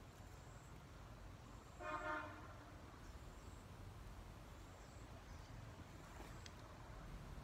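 A single short toot of a vehicle horn about two seconds in, over a faint low steady background rumble.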